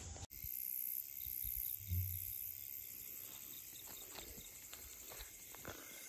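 Crickets chirring steadily in a high, continuous trill, faint, with a soft low thump about two seconds in.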